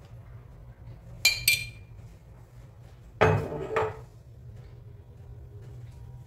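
Steel spoon clinking twice against kitchenware, followed about a second and a half later by a longer clatter of utensils.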